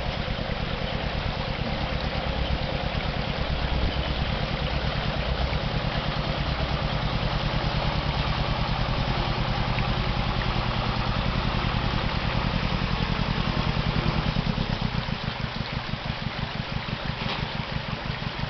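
Engine of an old, heavily loaded truck running at low revs with an even pulsing beat as it crawls through a shallow rocky river, eased off about 15 seconds in. The steady rush of the river water runs underneath.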